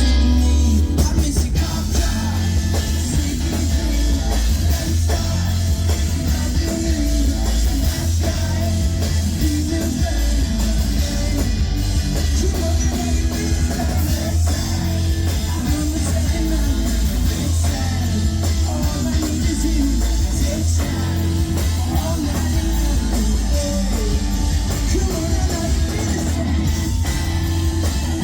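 A rock band playing live, with electric guitar and drums over a heavy, booming bass.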